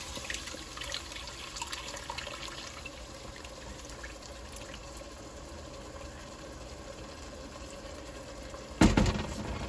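Blended chile salsa poured through a mesh strainer into a hot pot, splashing and pattering for the first few seconds, then settling to a steady trickle as it drains through the mesh. Near the end, one sudden loud knock.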